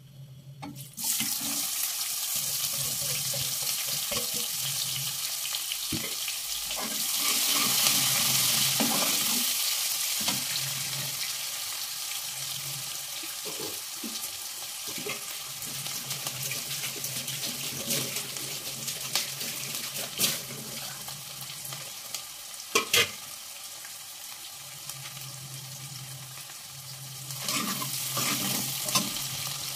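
Cumin and coriander sizzling in hot oil in a kadai as a tempering (tadka), a steady hiss that starts suddenly about a second in and is loudest a few seconds later. A wooden ladle stirs them, with a couple of sharp knocks about two-thirds of the way through.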